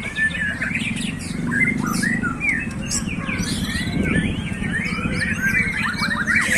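Several caged white-rumped shamas (murai batu) singing at once: a dense, continuous tangle of overlapping quick whistles, chirps and trills over a steady low background rumble.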